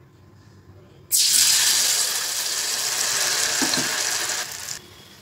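Hot oil sizzling loudly as batter-coated dough balls are dropped in to deep-fry. It starts suddenly about a second in, holds steady, and drops off sharply near the end.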